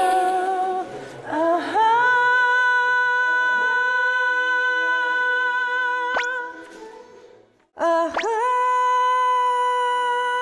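A male voice singing a cappella, holding long, steady high notes: one held for about five seconds that fades away, a brief pause, then another long high note held to the end.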